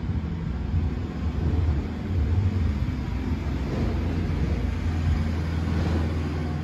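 Low, uneven rumbling noise with no distinct events, rising and falling in loudness.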